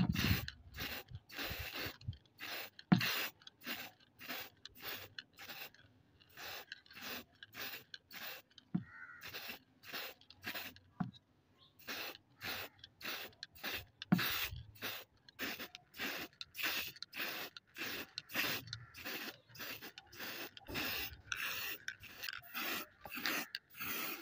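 Aerosol spray paint can sprayed in short, quick puffs, about two or three hisses a second, with an occasional low knock from the parts being handled.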